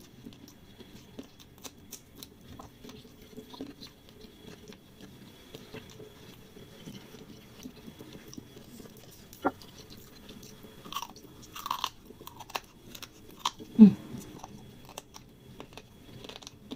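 Close-up mouth sounds of a person chewing fried noodles: a steady run of small wet clicks and smacks, with a few louder ones in the second half.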